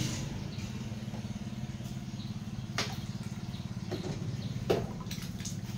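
A small engine running steadily with a fast, even low pulse, and two sharp knocks about three and five seconds in.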